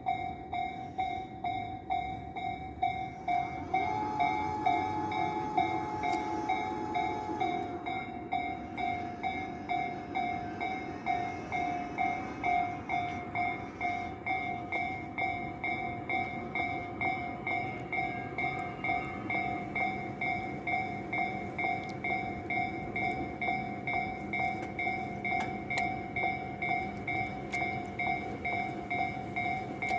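Japanese railway level-crossing warning bell ringing in a steady, regular ding-ding while a Tobu Tojo Line electric train runs through. A steady higher tone sounds for a few seconds from about four seconds in.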